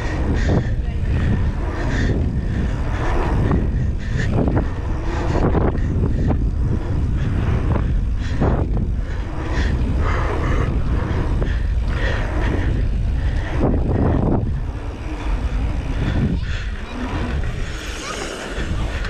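Wind buffeting the microphone over the clatter of a Canyon Spectral 29 mountain bike riding fast down rough trail: tyres on dirt and rock, with many short knocks and rattles from the bike. It gets a little quieter in the last few seconds.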